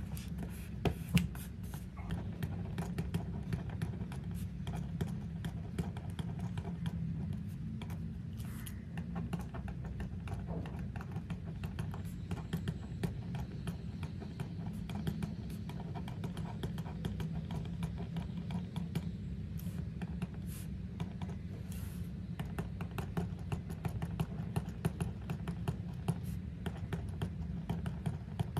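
Pen writing on a paper planner page and hands handling paper: many small scratches and light taps, over a low steady hum. One sharper click about a second in.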